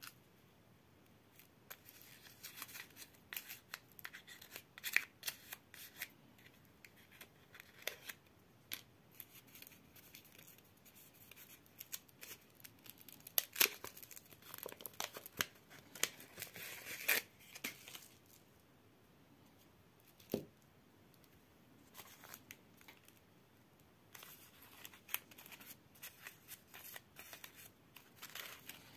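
Crinkly wrapper of a cone-shaped chocolate candy being peeled and torn open by hand: irregular sharp crackles and tearing in bursts, with a quieter stretch about two thirds of the way through.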